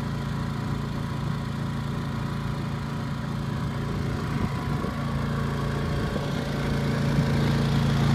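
Yamaha EF3000iS inverter generator's single-cylinder engine running steadily under the load of an RV air conditioner, with a steady low hum that grows louder in the last few seconds.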